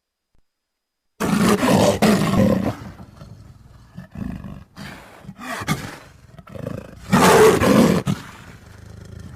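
Leopard calling: silence for about a second, then a loud, rough call, several quieter calls, and a second loud call about seven seconds in.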